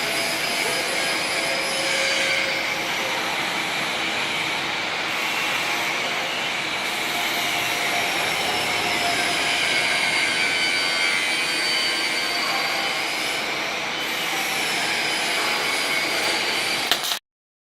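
Robotic welding cell with its slider and positioner running: a steady mechanical noise with faint whining tones that rise and fall as the axes move. It cuts off suddenly near the end.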